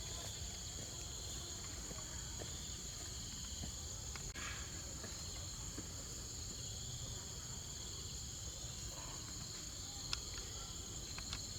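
Steady insect chorus in forest, a continuous high-pitched shrilling with two bands of pitch, broken only by an occasional faint click.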